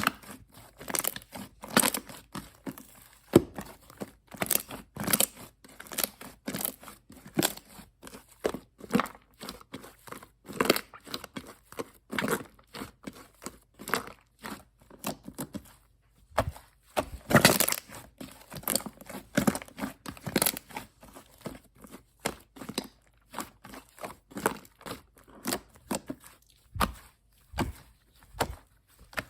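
Fluffy shaving-foam slime being squeezed, folded and stretched by hand, giving a continuous run of irregular crackles, snaps and squishy pops.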